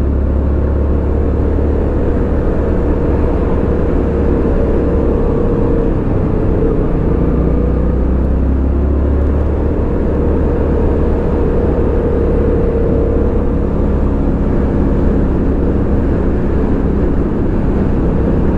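Yamaha FZ-07's 689 cc parallel-twin engine running steadily while the motorcycle is ridden, with a constant low rumble underneath and the engine note drifting slowly up and down.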